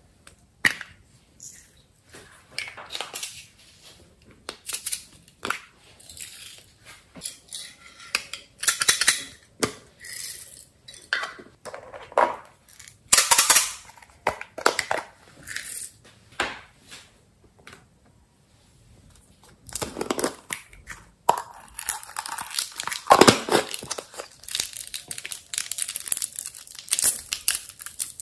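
Small plastic toy containers handled and opened by hand: scattered plastic clicks, taps and rustles. From about 20 seconds in, a denser run of crinkling and crackling.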